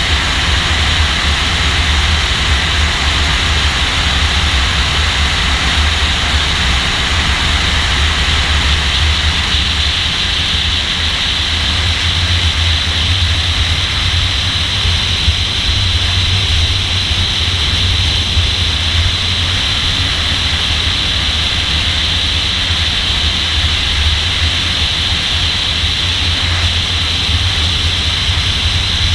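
Nissan Z sports car driving at speed: a steady, loud rush of wind, road and engine noise with no distinct gear changes or revving.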